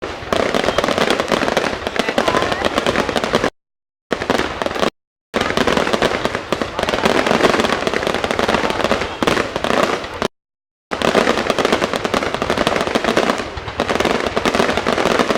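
Fireworks going off in a dense, rapid crackling barrage, like machine-gun fire. The sound drops out completely three times for a split second.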